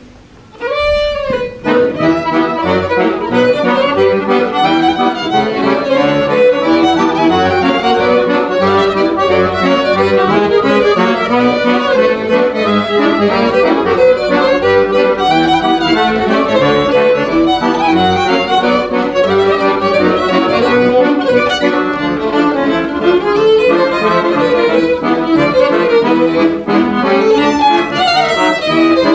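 Acoustic ensemble of two violins, clarinet, cello and accordion playing an instrumental piece. The music comes back in about a second in with a note that slides up, then carries on with a busy, many-note melody over the accordion.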